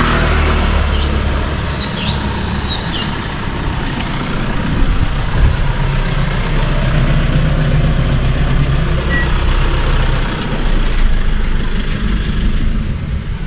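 Low, steady rumble of a motor vehicle engine running close by. Birds chirp over it during the first few seconds.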